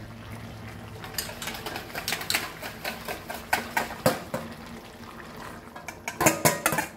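A spoon clicking and scraping against a metal bowl as beaten curd is scooped out into a kadai of cooking chicken, in irregular taps that come quicker and louder near the end.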